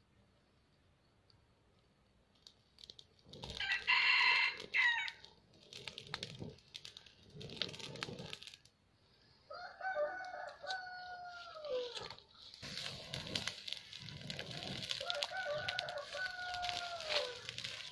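A rooster crows three times, each a long call ending in a falling tone. Between the crows come a few short puffs of breath, and in the last third the dry-leaf fire crackles as it catches.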